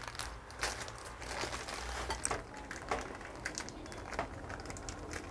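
Thin clear plastic bag crinkling and rustling in irregular bursts as it is handled and pulled out from under food on a plate.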